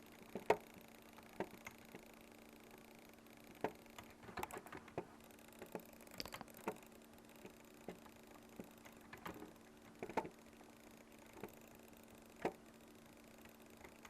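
Scattered sharp clicks at irregular intervals, bunched in quick clusters about four to five seconds in and again around ten seconds, over a faint steady hum.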